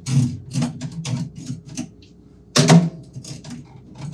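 Rapid, irregular clicking and clattering of faucet parts and supply hoses being handled down in a stainless steel kitchen sink during a faucet install, with one louder knock about two and a half seconds in.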